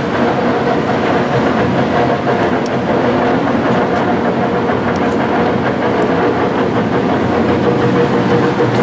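LeBlond 30-inch by 120-inch engine lathe running under its 15-horsepower motor, spindle and headstock gearing turning: a loud, steady mechanical running noise with a few faint clicks.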